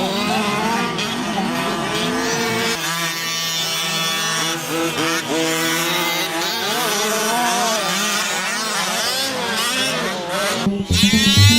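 Several RC cars racing, their motors whining in overlapping pitches that rise and fall as they speed up and slow down. Louder music comes in near the end.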